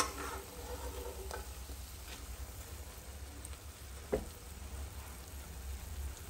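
Battered potato slices deep-frying in hot oil in a kadhai: a steady sizzle with fine bubbling, and a sharp click at the start and another about four seconds in.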